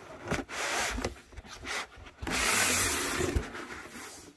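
Cardboard rubbing and scraping as an item is worked out of a cardboard shipping box: a few short scrapes, then a longer, louder scrape about halfway through.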